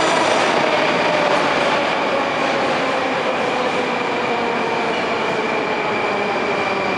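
Metro train running in the station: a loud steady rumble with a high electric whine and a lower tone that slowly drops in pitch.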